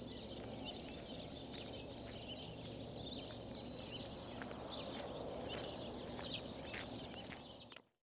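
Many birds chirping and twittering in quick, overlapping calls over a low, even background rumble, fading out near the end.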